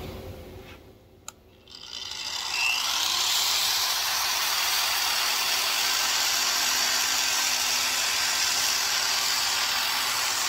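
A click, then an SCT surface conditioning tool starts about two seconds in, its motor whining up to speed. It then runs steadily as its sandpaper and Scotch-Brite wheel rubs over small steel pin blanks held in a template, giving them a uniform surface finish.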